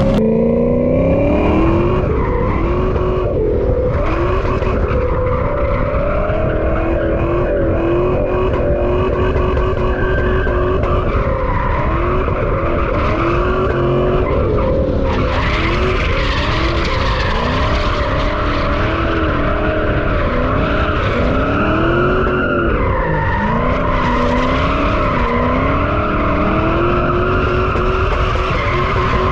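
A drift car's engine held high in the revs, its pitch rising at the start and then wavering up and down with the throttle, while the tyres screech as the car slides; the screech grows stronger about halfway through.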